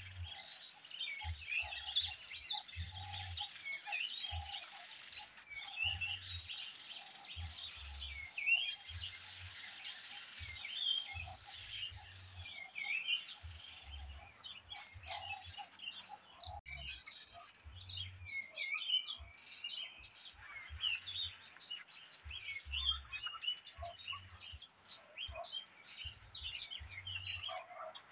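Many small birds chirping, a dense chorus of short chirps throughout, with irregular low rumbles coming and going underneath.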